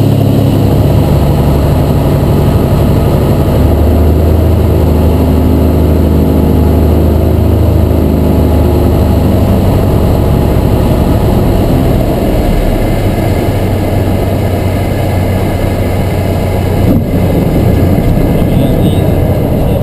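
Cessna 172's six-cylinder Continental O-300 engine and propeller running at reduced power on final approach, heard inside the cabin over the airflow. The engine note shifts about four seconds in, turns rougher and drops a little in loudness after about twelve seconds as the plane lands and rolls out on the runway.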